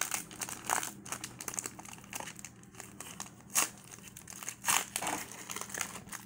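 Foil wrapper of a 2017 Leaf Draft football card pack being peeled and torn open by hand, crinkling in irregular crackles, a few of them louder in the middle.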